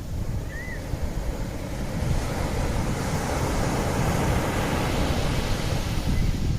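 Sea waves washing on the shore, a steady rush that swells in the middle. Wind buffets the microphone, adding a low rumble throughout.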